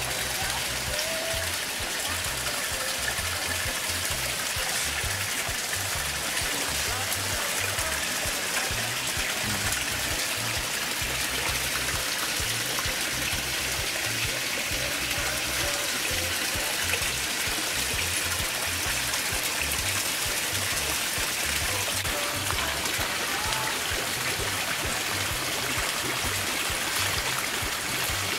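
Steady trickle and splash of water running into a koi pond, with background music carrying a steady rhythm of low bass notes.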